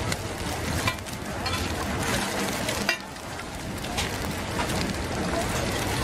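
Egg frying in a large wok of hot oil, a steady sizzle. A metal spatula and ladle stir it, with a few sharp clinks against the wok.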